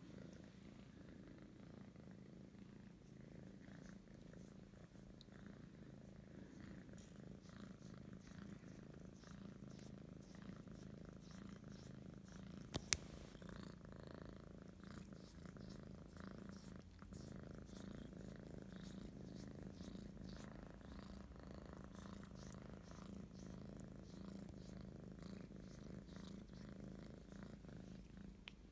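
Calico kitten purring steadily while being stroked, a faint low rumble that pulses in and out with her breathing. A single sharp click about halfway through.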